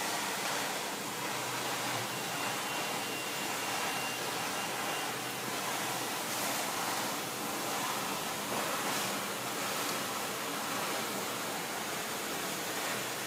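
Wallpaper trimming machine running as a roll of hand screen-printed wallpaper feeds through its rollers and its edges are slit off: a steady, even rushing noise, with a faint high tone for a few seconds about two seconds in.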